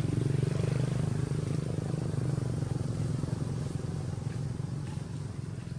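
A steady low engine drone that slowly grows fainter.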